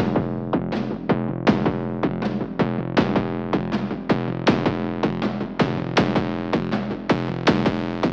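Background music: electronic synthesizer music with a regular drum-machine beat, about two or three strikes a second over held keyboard chords.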